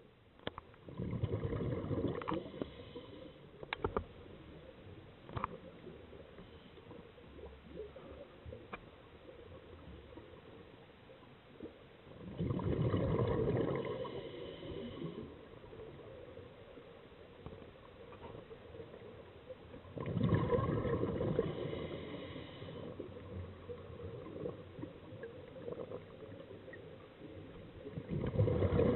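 Scuba diver's exhaled bubbles gurgling out of the regulator in bursts of a couple of seconds about every eight seconds, one breath after another, with a few faint clicks in between.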